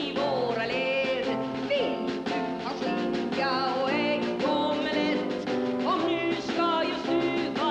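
Music: a woman singing into a microphone to instrumental accompaniment, with held, wavering sung notes over steady chords.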